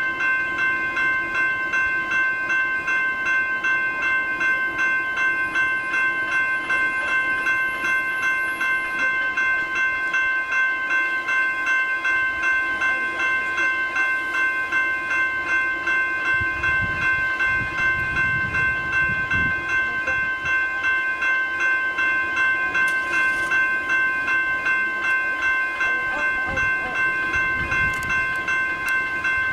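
Electronic level crossing bells, a General Signals Type 1 and Type 2, ringing steadily in rapid, even strokes while the crossing is activated. A low rumble rises and fades about halfway through and again near the end.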